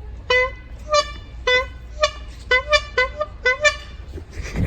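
Small handheld canned air horn blown in about nine short toots at an uneven rhythm, some in quick pairs.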